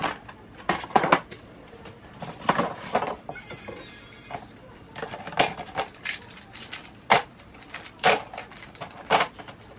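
Plastic storage bins and a basket being pulled out of and pushed back into a wooden kitchen cabinet: an irregular string of clunks and knocks with a short scrape about three seconds in.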